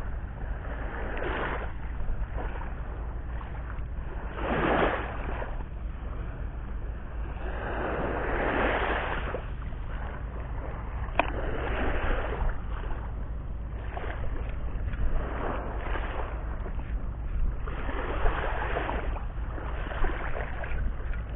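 Small waves washing in at the shoreline, a swash every second or two, over a steady low rumble of wind on the microphone; one sharp click about eleven seconds in.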